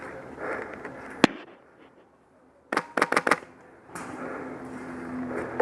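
Airsoft HK416 with a Polarstar HPA engine firing: one sharp shot, then about a second and a half later a rapid string of about six shots, with rustling noise between.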